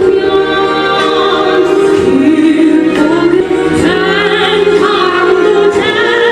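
Music with singing: voices hold long notes with vibrato over a continuous accompaniment.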